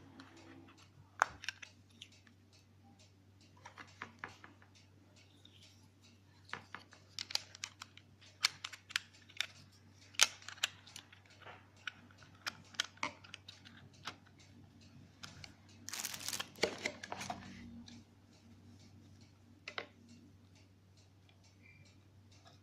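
Irregular clicks and taps of hard plastic being handled, with a short rustling burst about three quarters of the way through, over a steady low hum.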